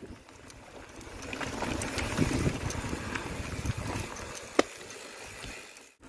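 Rushing wind and tyre noise from a mountain bike coasting down a dirt trail, with small scattered knocks from the bumps. It swells in the middle and fades near the end. A sharp click comes about four and a half seconds in.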